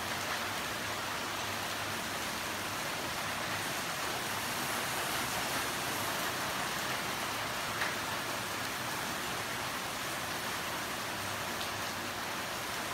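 Steady rain falling on garden foliage, palm fronds and a pond, heard as an even hiss. There is one brief tick about eight seconds in.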